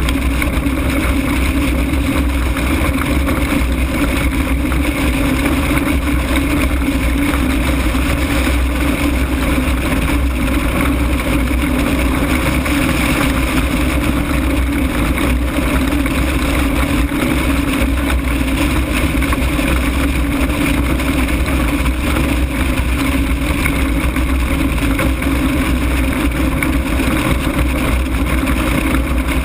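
Steady, loud rush of airflow over an open-frame ultralight and its microphone in an engine-off glide, with a constant low drone that does not change.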